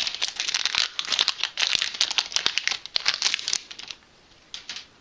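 Foil wrapper of a Yu-Gi-Oh Extreme Victory booster pack crinkling as it is torn open and the cards slid out, a dense crackle that stops about three and a half seconds in, with one more short crinkle near the end.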